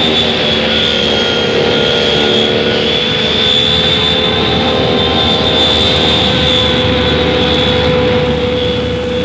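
Twin Rolls-Royce Dart turboprop engines of a Fairchild F-27 running as the airliner taxis, a steady high-pitched whine over a lower steady drone.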